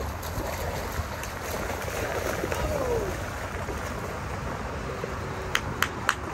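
Steady wind rush on the microphone over lapping shallow water, with dogs splashing through the shallows. A brief falling squeal comes about two and a half seconds in, and a quick run of sharp clicks near the end.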